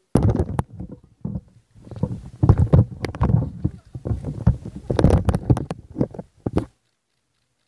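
Loud rumbling and irregular knocks right on the camera's microphone as the camera is handled and swung around, stopping abruptly near the end.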